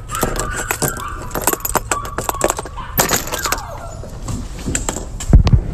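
Metal doorknob rattling and clicking as it is gripped and turned, with a heavy thump near the end as the door is pushed open. Faint puppy whines sound behind the door in the first couple of seconds.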